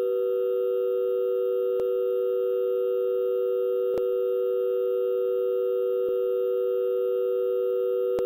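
Telephone dial tone: a steady two-note hum held without a break, with a few faint clicks.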